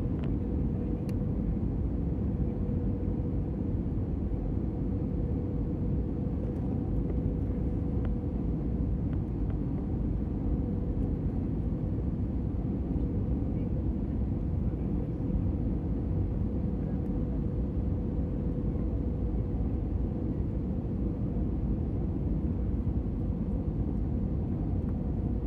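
Steady roar of a jet airliner's engines and rushing air heard inside the passenger cabin during the descent to land, with a faint steady tone in it.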